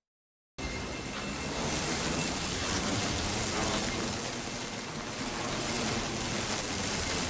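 A steady hissing, crackling noise effect that starts abruptly about half a second in, after a moment of silence, and runs on evenly, much like heavy rain.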